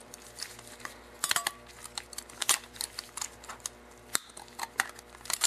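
Steel clutch shoes and coil spring of a Husqvarna chainsaw centrifugal clutch clinking and scraping against pliers as the spring is worked out by hand: a run of irregular small metallic clicks.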